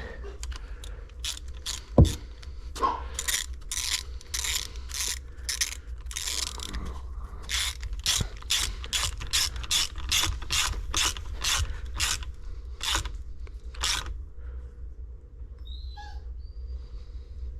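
Hand ratchet worked back and forth in quick short strokes, clicking in bursts about twice a second, tightening the hose clamp on the new water pump's hose; one sharp knock about two seconds in, and the clicking stops near the end.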